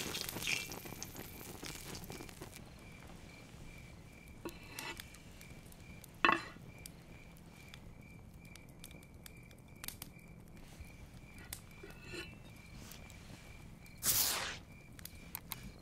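Sizzle of a seared flap steak fading away as it is lifted from the hot pan, then crickets chirping steadily at night with a few sharp clicks. Near the end a large knife slices into the steak on a wooden board in one short scraping cut.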